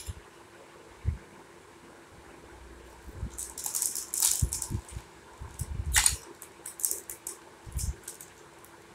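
Small metal toy cooking utensils being handled: a click as one is set down, another about a second in, then from about three seconds in a run of light rattling and clinking.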